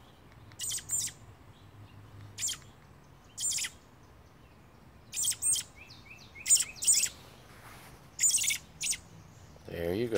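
Fledgling American robin giving short, high-pitched chirps at irregular intervals, singly and in pairs, about a dozen in all.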